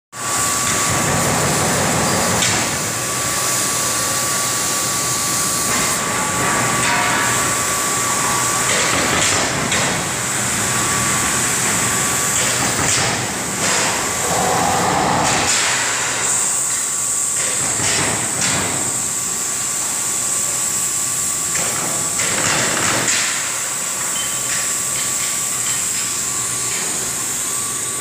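Induction-furnace melt shop running with a dust collector: a constant high whine and a steady rushing hiss, with metal clanks and knocks every few seconds.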